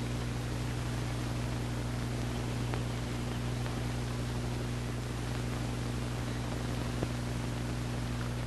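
Steady low electrical hum under a constant hiss, with a few faint isolated clicks.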